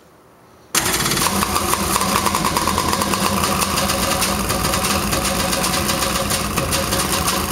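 Rebuilt 1010cc big-bore Polaris Pro 785 two-stroke engine catching suddenly a little under a second in on its first start after the rebuild, then running steadily.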